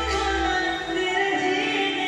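Background music with long held melodic notes over a deep bass that drops away under a second in.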